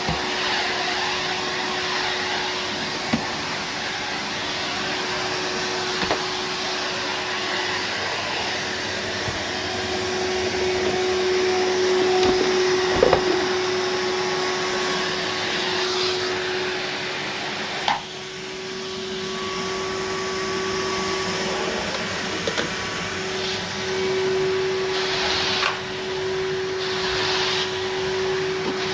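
Numatic Henry HVR200-22 vacuum cleaner running steadily while vacuuming: a constant motor hum and rush of air, with a few brief knocks along the way.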